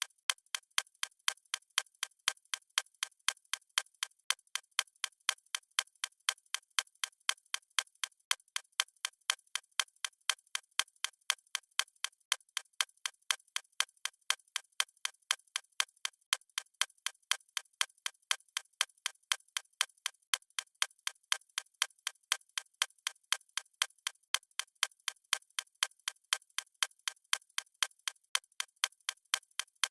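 A watch ticking steadily: an even run of sharp, bright ticks, several a second, without a break.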